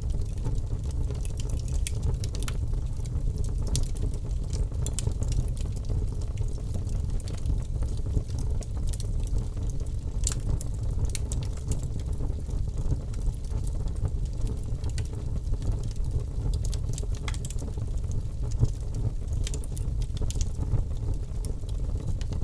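Wood fire burning in a fireplace: irregular sharp crackles and pops scattered over a steady low rumble.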